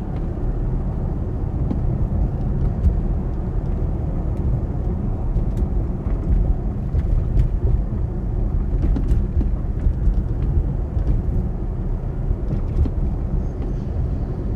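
Motor vehicle traffic noise: a steady low rumble of car engines and tyres on the road.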